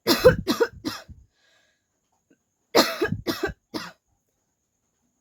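A woman coughing on purpose: two bursts of several quick, forceful coughs about two and a half seconds apart.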